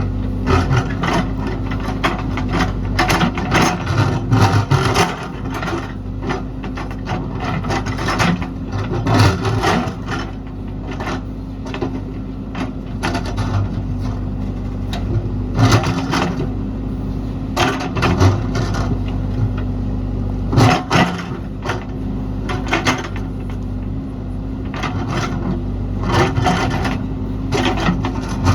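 JCB backhoe loader's diesel engine running steadily while its steel bucket scrapes and knocks against rock, with frequent irregular clanks and scrapes.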